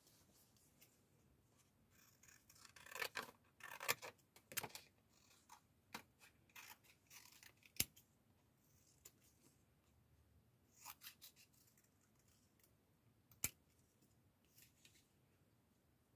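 Faint scissors snipping through craft material, a quick run of scratchy cuts about two to five seconds in, then scattered single snips and sharp clicks.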